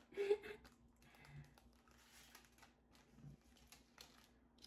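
Thin plastic cake wrapping being peeled and handled: faint crinkling with scattered light clicks and rustles.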